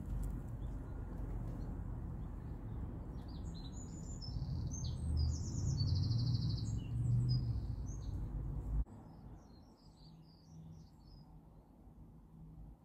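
Small birds chirping in quick high calls and short trills, over a steady low rumble. The sound drops suddenly about nine seconds in, leaving fainter chirps.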